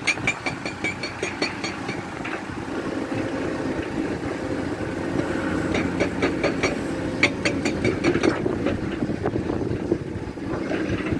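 Caterpillar 336 hydraulic excavator's diesel engine running steadily under load, with bursts of rapid clattering as the bucket dumps rock and soil into a steel dump-truck bed, about a second in and again from about six to eight seconds.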